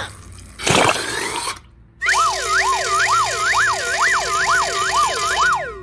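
Siren-like whistling sound effect: a tone that swoops up and down about twice a second, in two overlapping layers, starting about two seconds in and stopping shortly before the end. A short noisy whoosh comes about a second in.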